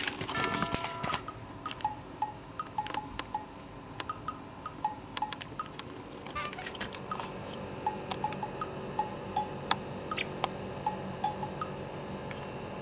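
Light background music: a steady string of short plinking, cowbell-like percussion notes with scattered clicks.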